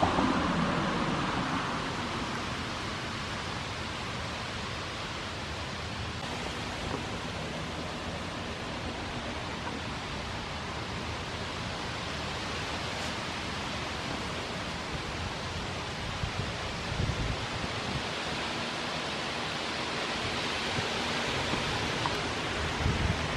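Steady outdoor background noise, an even hiss with no clear source standing out.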